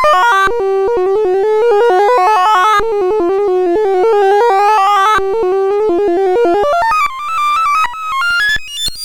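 Sorting-algorithm sonification: a rapid stream of short synthesized beeps whose pitch jumps up and down with the array values being accessed. They sit mostly in a low-middle band, break off briefly a few times, and step higher in the last couple of seconds.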